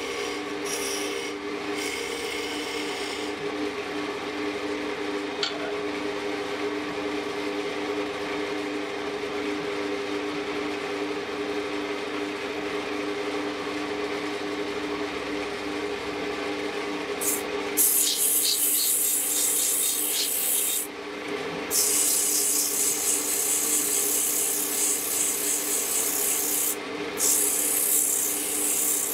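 Wood lathe running with a steady motor hum while a hand tool and then sandpaper rub against the spinning turned wood. The rubbing hiss becomes louder and brighter a little past the middle as the hand sanding takes over.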